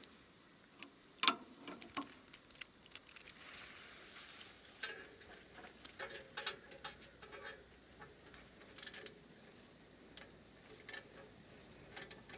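Irregular small clicks, taps and knocks of hand tools and parts being handled while fitting a turbo whistle, with one sharper knock about a second in.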